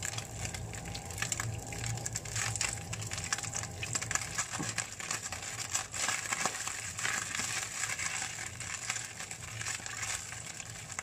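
Flaked canned tuna sizzling and crackling as it fries in olive oil in a nonstick pan, with a spatula scraping and stirring it through the oil, drying the flakes out to crisp them.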